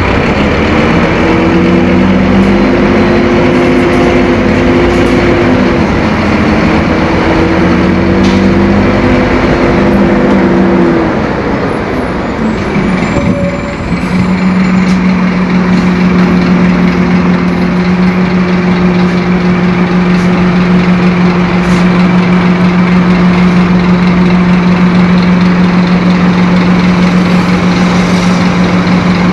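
Scania K-270 bus's five-cylinder turbo-diesel engine running loud. Its pitch shifts during the first ten seconds or so, the sound drops briefly about twelve seconds in, and then it holds a steady hum.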